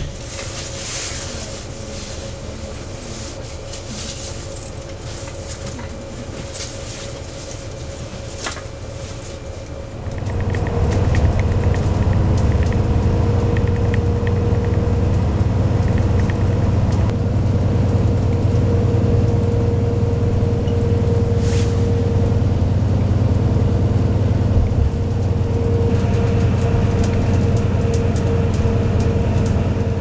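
Intercity bus heard from inside the cabin: a steady engine hum, then about ten seconds in the low rumble of the engine and road noise grows much louder and holds steady, with a faint steady whine over it.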